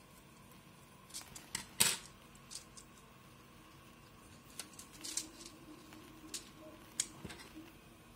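Scattered small clicks and crinkles as fingers and tweezers handle a small clear plastic bag of SMD parts and press it into a plastic SMD tape holder. The sharpest click comes a little under two seconds in. A faint steady hum runs underneath.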